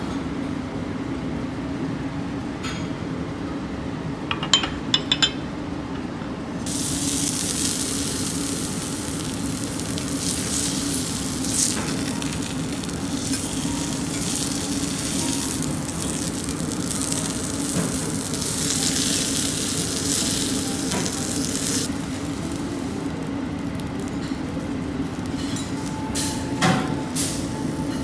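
Wagyu steak sizzling on a hot steel teppanyaki griddle: a loud frying hiss sets in about a quarter of the way in and dies down well before the end. Steel spatulas clink and tap on the plate a few times before and after the sizzle, over a steady low hum.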